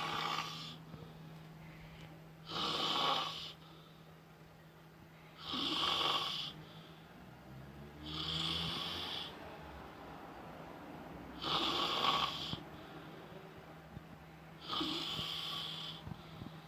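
A woman snoring in her sleep, a rasping snore about every three seconds.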